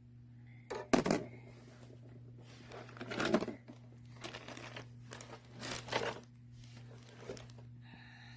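Five short bursts of crinkling, rustling handling noise, the first and loudest about a second in, over a steady low hum.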